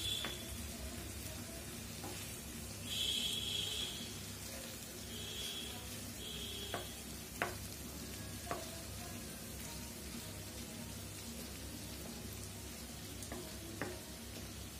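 Broiler chicken pieces in thick masala frying with a steady low sizzle in a granite-coated pan while a wooden spoon stirs them, with a few light knocks of the spoon against the pan. Three short high-pitched tones sound between about three and seven seconds in, the first the loudest.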